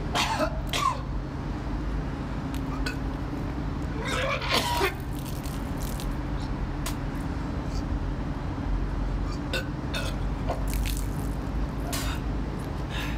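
A man retching and coughing in two bouts, near the start and about four seconds in, with a few fainter short sounds later, over a steady low hum.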